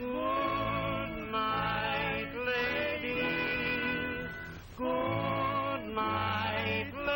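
Music on an old 1929 sound-film track: voices singing held notes in close harmony over a low bass line, the notes changing about once a second, with no high treble.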